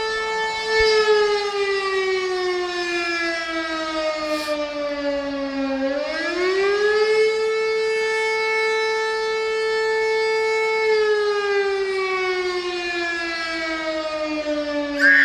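Railway (PKP) warning siren wailing. Its tone holds, then slowly falls for about five seconds, swings back up, holds again, and slowly falls once more near the end.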